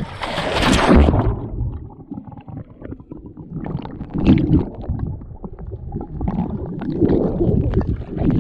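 Splash as a person goes into the sea holding the camera, then muffled underwater rumbling and bubbling from the camera's microphone below the surface, swelling in several low surges.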